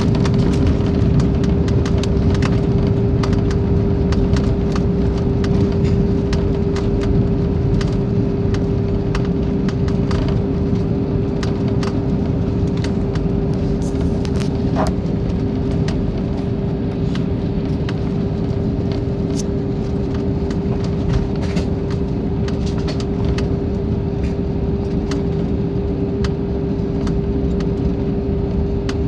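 Cabin noise of an Airbus A320-family airliner rolling along the runway after touchdown: a steady rumble from the engines and landing gear with a constant hum running through it, scattered light clicks and rattles, easing slightly as the plane slows.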